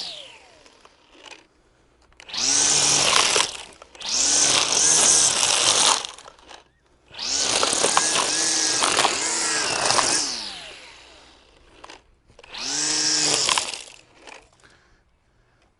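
Milwaukee M18 Fuel battery string trimmer triggered in four separate bursts of one to three seconds. The electric motor's whine rises quickly as it spins up, holds, then falls away each time the trigger is let go.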